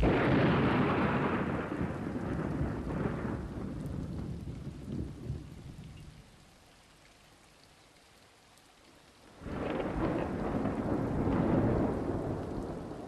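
Thunder rolling with rain, dying away by about halfway, then a second long roll of thunder that swells up near the end.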